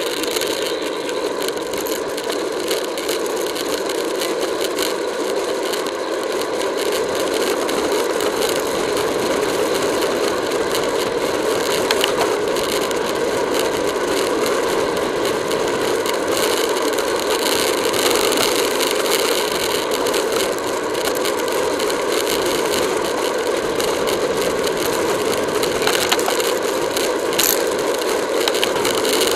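Steady rush of wind and road noise on a camera riding on a road bike at racing speed, with a constant small rattle and clicking of the camera and its mount from the road vibration.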